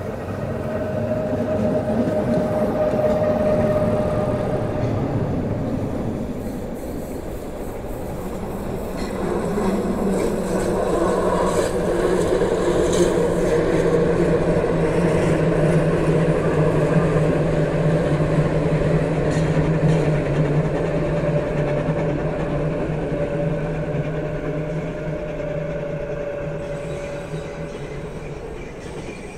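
Steam train running along the track: a steady rumble of wheels and carriages on the rails, loudest through the middle and fading near the end.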